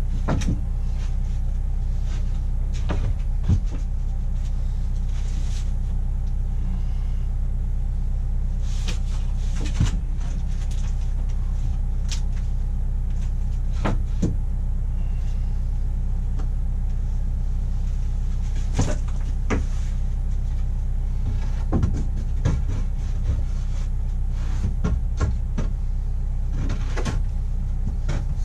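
A steady low machine hum, with irregular knocks and clicks from handling the boards and wiring while working on the ceiling.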